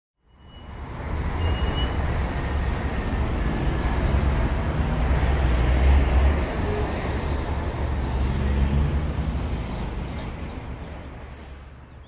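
A steady rumbling noise, strongest in the low end, that fades in over the first second and fades out near the end, with a few faint high thin tones over it.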